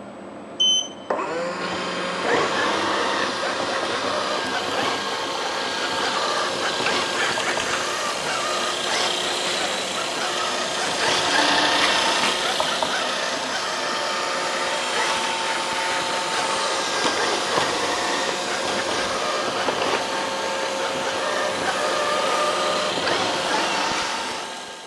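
LIETROUX A338 robot vacuum cleaner beeps briefly, then its motor starts about a second in and runs steadily with a whine. The sound fades out near the end.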